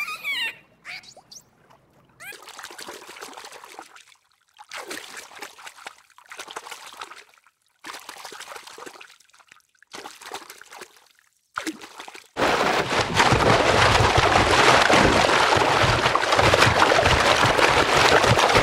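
Water sounds. Right at the start there is a brief dolphin whistle. Then come short bursts of trickling, sloshing water with silent gaps between them, and about two-thirds of the way through a much louder steady rush of water begins.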